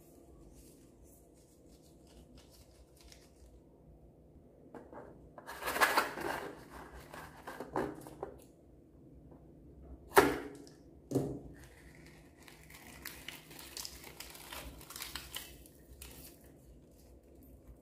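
Slime ASMR handling sounds: crinkly, rustling noise of slime, a rubber balloon and beads being squeezed and worked in a glass bowl. Two sharp snips about a second apart near the middle are scissors cutting the balloon.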